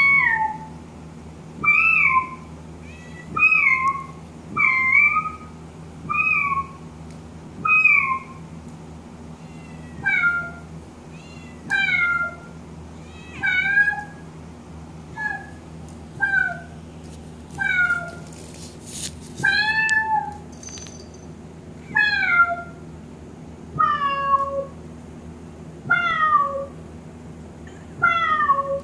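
Synthesized cat meows from a Kurzweil PC3 keyboard, played over and over, one about every one and a half seconds. Each meow falls in pitch at the end; the later ones start higher and slide further down. A faint steady low hum runs underneath.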